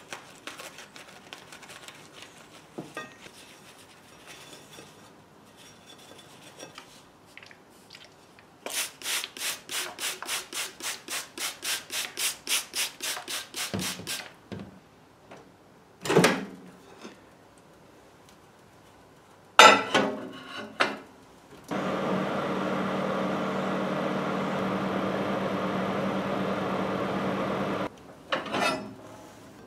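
Paper towel rustling around wooden strips, then a trigger spray bottle squirted rapidly, about four times a second for five seconds. Several knocks follow as the plate goes into a microwave oven, then the microwave runs with a steady hum for about six seconds, heating the moistened strips to soften them. The hum cuts off and the microwave door opens with a clunk near the end.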